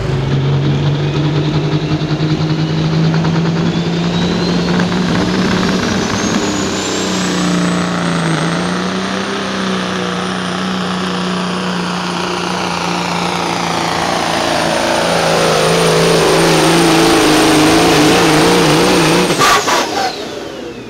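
Pro Stock semi truck's diesel engine running flat out under load as it pulls the sled, with a high turbocharger whistle that climbs over the first several seconds and then holds. About a second before the end the driver lets off: a few sharp cracks, then the whistle spools down.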